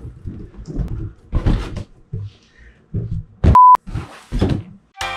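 A short, loud, steady beep at one pitch, a censor-style bleep, about three and a half seconds in, lasting about a quarter of a second. It sits among several brief scuffling bursts, and music starts right at the end.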